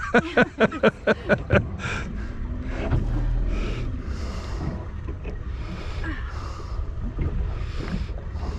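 A woman grunting and breathing hard in short rhythmic bursts, about four a second, with the effort of cranking a fishing reel against a fish. The bursts stop after about a second and a half, leaving a softer hiss with a low rumble.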